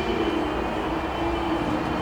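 A steady machine drone over a low rumble, its hum slowly falling in pitch.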